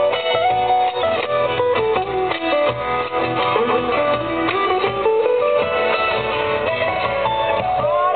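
Guitar-led Argentine folk music: strummed and plucked guitar under a moving melody line, playing steadily for the dancers.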